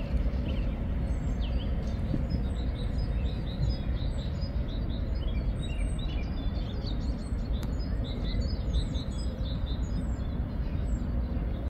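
Several small songbirds chirping and singing, many short high calls overlapping, over a steady low rumble.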